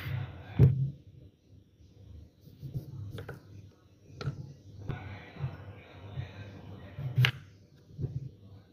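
A knife slicing through a raw beetroot and knocking on a wooden cutting board at irregular intervals, each cut ending in a sharp tap.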